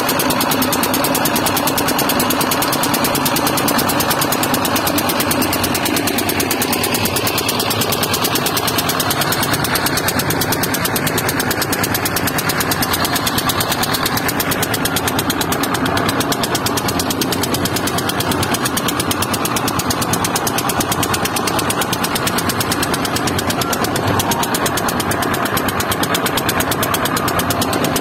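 Boat engine running steadily under way, a fast, even knocking chug.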